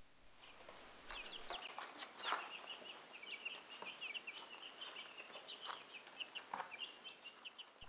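Young, partly feathered Ameraucana chicks peeping: a steady run of short, high chirps, with a few scattered clicks among them.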